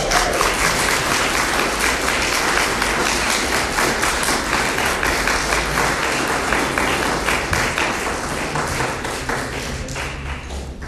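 Small audience applauding, the clapping breaking out right at the start and thinning out near the end, over a steady low hum.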